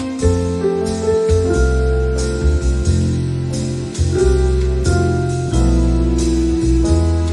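Background music: sustained keyboard and synth notes over a heavy bass line with a regular beat.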